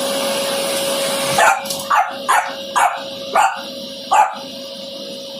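French bulldog puppy barking six times in quick succession, about two barks a second, at a running vacuum cleaner that hums steadily underneath.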